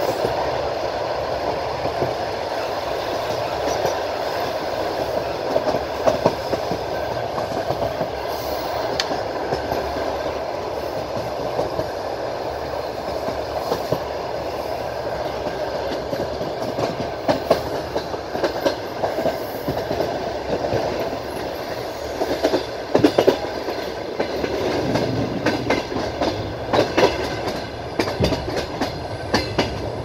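Clickety-clack of a passenger train's wheels over the rail joints, heard from inside the carriage over a steady running rumble. In the second half, bunches of sharper, faster clacks come, as when the wheels cross points.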